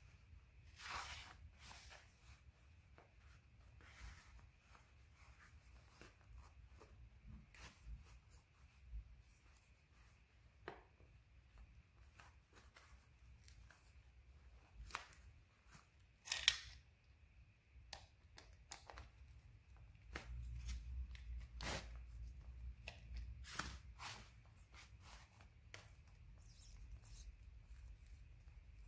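Faint hand-work sounds: satin fabric rustling as it is smoothed and stretched, with scattered small clicks and taps. The sharpest click comes about sixteen seconds in, and a low rumble runs for a few seconds about twenty seconds in.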